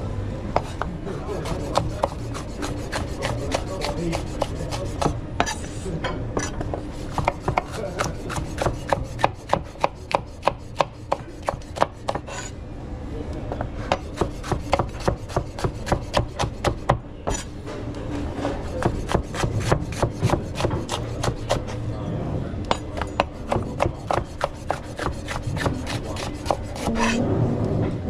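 Rapid, rhythmic strokes of a kitchen utensil against a hard cooking surface, about four a second, in runs broken by short pauses, over a steady low hum.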